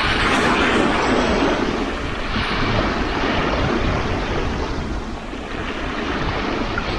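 Sea waves breaking and washing onto the shore: a continuous rush of surf that swells near the start and again a couple of seconds in, over a steady low rumble.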